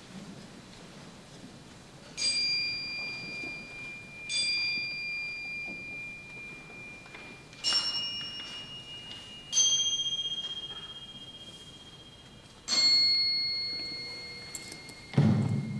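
Crotales struck five times, about two seconds apart. Each stroke gives a clear high ringing tone at a different pitch that rings on and slowly fades. A short low thump comes near the end.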